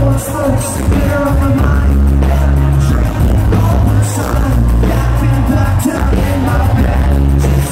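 Pop-rock band playing live and loud: a singer over electric guitar, heavy bass and drums.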